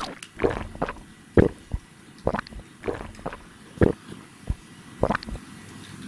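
A Eurasian tree sparrow's beak jabbing into the juicy flesh of a halved mandarin orange: about a dozen short, wet squishing pecks, roughly two a second.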